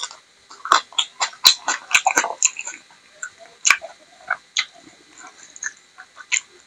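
Close-miked eating: wet chewing, lip smacks and mouth clicks at an irregular pace as a mouthful of rice and kidney bean curry is eaten by hand.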